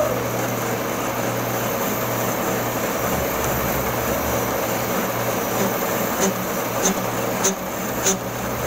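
Metal lathe running with a large cylindrical steel workpiece spinning in its chuck: a steady mechanical hum and hiss. About six seconds in, a light tick starts repeating roughly every two-thirds of a second.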